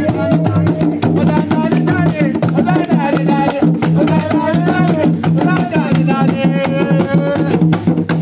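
Background music with a steady percussion beat and a singing voice.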